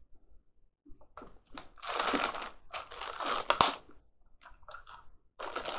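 Crunching of a chocolate-coated mint finger biscuit being bitten and chewed. The crunches come in a run from about a second in and are loudest midway, with a few shorter ones near the end.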